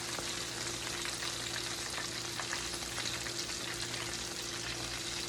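Food frying in hot oil in a pan: a steady crackling sizzle.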